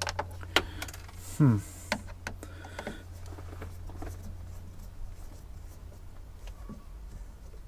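Sharp clicks and taps of a small screwdriver and small hardware being handled, several in the first three seconds and a few faint ones later, with a short falling voice sound like a grunt about one and a half seconds in. A low steady hum underneath.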